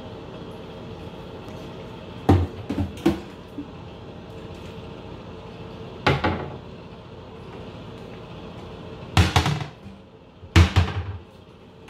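Wooden under-sink vanity cabinet door opening and shutting while plastic cleaning and spray bottles knock and clatter as they are moved and taken out. There are several short knocks spread through, with the loudest two close together near the end.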